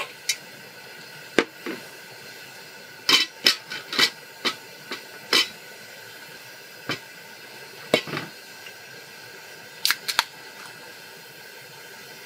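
Scattered sharp clicks and light knocks of camp gear being handled and set down on a cooler lid, a plate and a wire beer-can-chicken stand, with a quick cluster of three clicks about ten seconds in, over a steady hiss.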